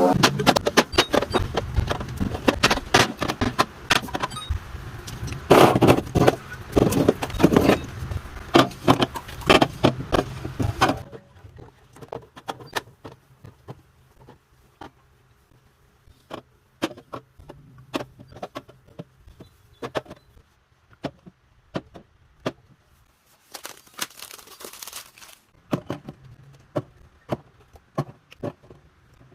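Packaging and plastic containers being handled and set down: dense rustling and clatter for about the first ten seconds, then separate sharp clicks and taps, with a short burst of rustling near the end.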